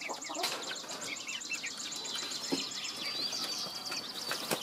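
Birds chirping: scattered short, high chirps over a fast, evenly repeating high trill, with a thin, steady high note held for about two seconds in the second half.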